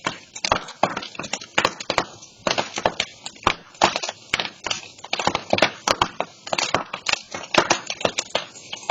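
Burning brush pile crackling, with many sharp pops at an irregular pace.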